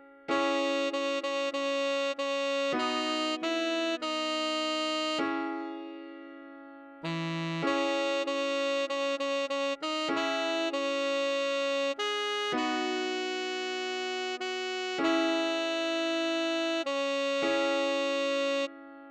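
Synthesized tenor saxophone playing a melody in short, quick repeated notes. It comes in two phrases with a fading pause of about two seconds between them, and each phrase rings away at its end.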